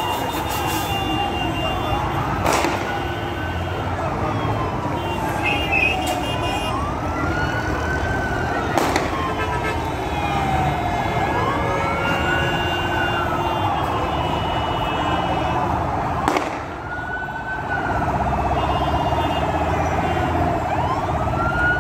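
Emergency vehicle siren wailing in slow cycles, each rising quickly and then falling off over a few seconds. Three sharp bangs cut through it.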